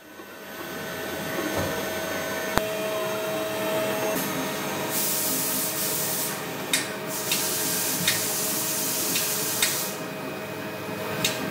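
CNC machining center milling a steel mold component: a steady spindle whine with grinding cutting noise, and a sharp click a little over two and a half seconds in. From about five to ten seconds in comes a loud hiss, followed by several short sharp hisses.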